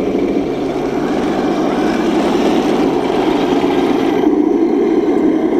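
Henglong Walker Bulldog RC tank's simulated engine sound playing steadily through its small onboard speaker, with a hiss over it that fades out about four seconds in.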